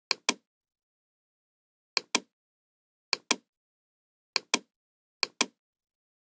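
Computer mouse double-clicking: five quick pairs of sharp clicks, a second or two apart.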